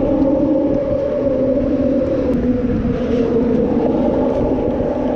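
Steady drone of traffic on the overhead road bridge, a hum holding a couple of fixed pitches, over the rumble of strong wind buffeting the microphone.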